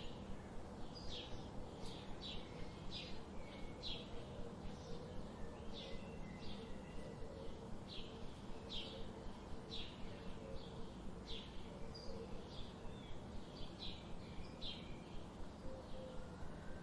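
Birds chirping: short, high notes repeated several times a second, over a steady background noise with a faint low hum.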